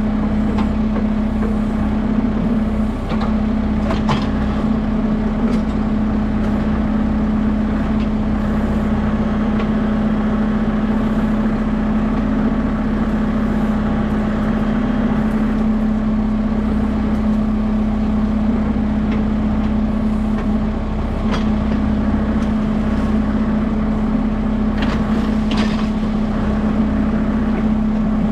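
Kubota M6060 tractor's diesel engine running steadily at one speed, with a few short knocks now and then as the backhoe works.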